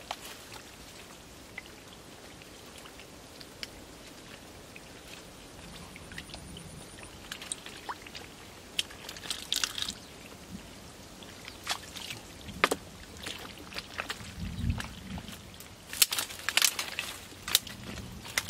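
Hands groping and splashing in shallow muddy water: scattered small splashes, drips and sloshes, busier in the second half, with one dull low thump late on.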